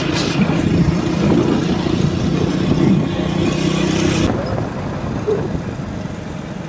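Hero HF Deluxe motorcycle's small single-cylinder engine running at a steady cruise under the rider, with a rushing noise over it that drops away about four seconds in.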